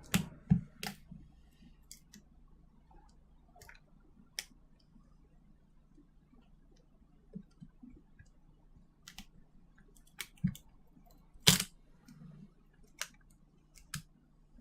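Scattered small clicks and taps as a smartphone's circuit board is worked loose and lifted out of its plastic housing, the loudest click about eleven and a half seconds in.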